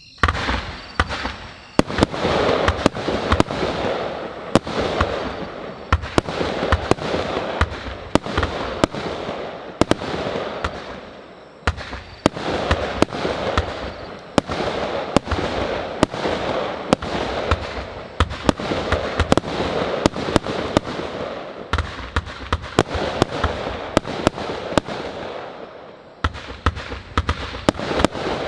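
A 144-shot, 25 mm-calibre compound firework cake firing. It begins with a sudden first shot, then keeps up a rapid run of sharp launch reports and bursts, several a second, over a continuous hiss and crackle.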